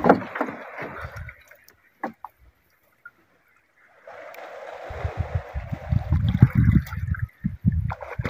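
Sea water sloshing and trickling against the side of a small boat. It drops to near silence for about two seconds a little after the start, then comes back with irregular low bumps.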